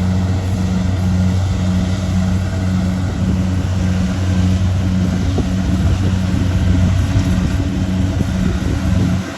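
Rice combine harvester's diesel engine running steadily under load, a loud low hum with mechanical clatter over it.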